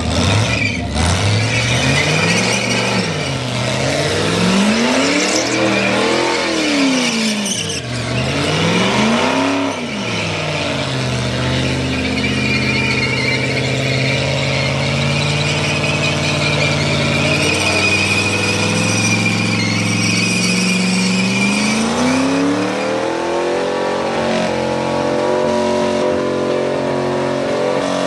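A burnout car's engine revved hard up and down several times, then held at high revs with a further climb about three quarters of the way through, over the continuous squeal of its spinning tyres.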